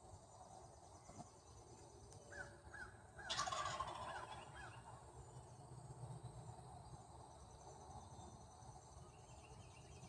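A wild turkey gobbling once, about three seconds in: a rattling call lasting about a second, led in by a few short higher notes.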